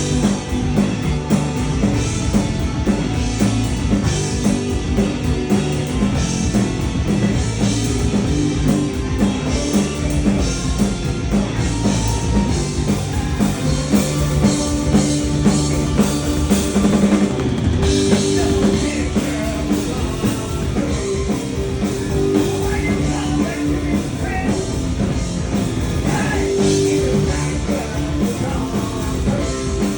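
Punk rock band playing live and loud: distorted guitars, bass and a fast driving drum kit, with shouted vocals.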